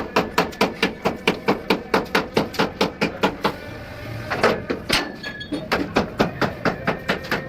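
Hammer striking metal in rapid, regular blows, about five a second, with a short break about halfway through before the hammering starts again.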